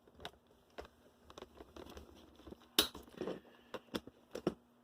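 Scattered light clicks and taps of the small plastic and metal parts of an Athearn Blue Box model locomotive truck being handled, the sharpest a little under three seconds in.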